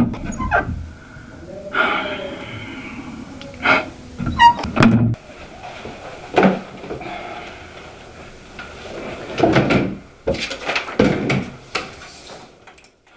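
Scattered knocks, thuds and rustling as a person moves about a small room and sits down at a desk.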